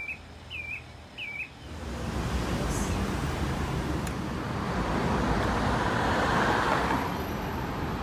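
A bird gives a few short, hooked calls in quick succession, then road traffic noise takes over about two seconds in, swelling as a vehicle passes about six or seven seconds in.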